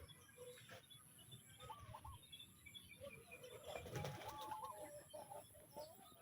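Chickens clucking faintly while feeding: a string of short, low calls from several birds, busiest around the middle.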